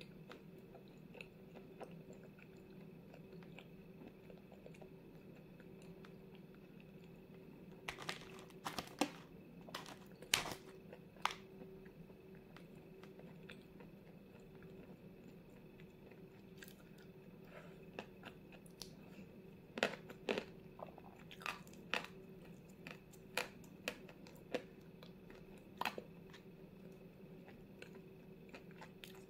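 Biting into and chewing a water-soaked lump of Vasilpolye 'zefirka' edible chalk close to the microphone: a burst of sharp crunches about eight seconds in, then a longer run of scattered crunches in the second half, with a steady low hum between.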